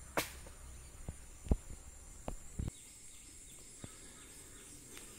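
Outdoor ambience: a steady high-pitched insect drone, with a handful of sharp clicks and taps in the first half and faint short chirps later on.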